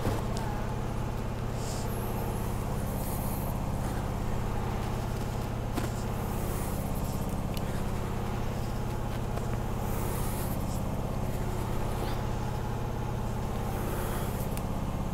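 Washing machine running with a steady, even hum, and a few faint clicks over it.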